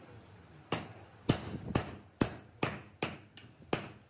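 Hammer blows on a steel driver, tapping valve seat inserts into a tractor's cast-iron cylinder head. There are about eight sharp metallic strikes, roughly two a second, each ringing briefly.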